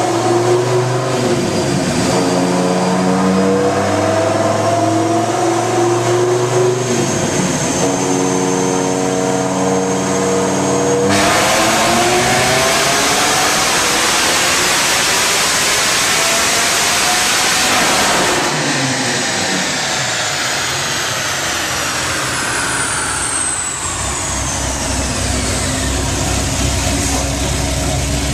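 Modified Dodge Viper GTS V10, with ported heads, a custom cam, headers and a Corsa exhaust without cats, running on a chassis dyno. At first it holds steady revs with one step in pitch. About eleven seconds in it goes to wide-open throttle for a full pull, the pitch climbing for some seven seconds; then the throttle shuts and the engine winds down, pitch falling together with a high whine, settling near the end to a low, steady idle.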